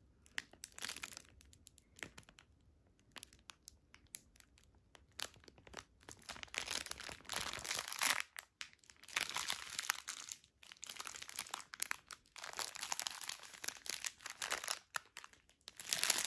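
Crinkling of a clear plastic bag full of small packets of diamond-painting drills as it is handled and turned in the hands, in irregular bursts.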